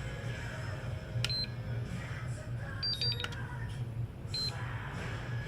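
Short electronic beeps from a hobby LiPo battery charger as its buttons are pressed to set up a balance charge: a single beep about a second in, a quick cluster of two-pitched beeps around the middle, and another single beep near the end, over a low steady hum.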